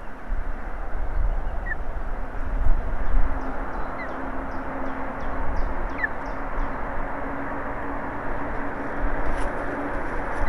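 Wind rushing and buffeting over an outdoor nest-camera microphone, with gusts a little under three seconds in. Three brief, thin bird chirps come through it, about two seconds apart.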